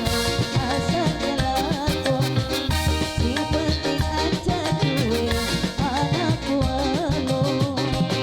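Upbeat Cirebon burok street-troupe music: a steady, busy drum beat under a wavering melody line.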